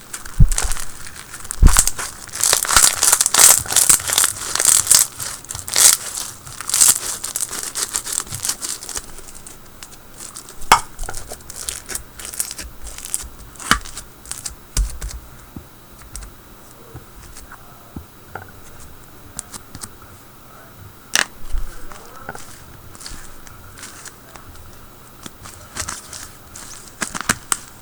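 White glue slushie slime being squished and stretched by hand: a dense run of crackling clicks and bubble pops for the first several seconds, then sparser single pops.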